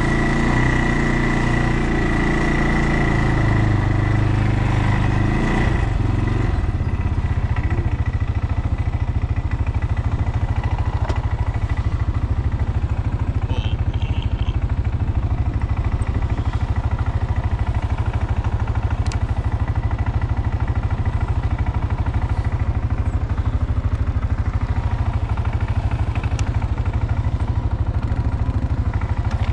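ATV engine running while being ridden. Its note changes about six seconds in, then holds a steady, fast pulsing.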